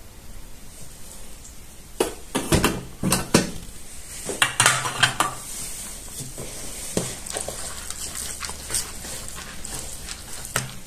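Metal ladle clinking and knocking against the pot and bowl as broth is ladled over steamed vermicelli. Most of the knocks come in a cluster in the middle, with a few lighter clicks near the end.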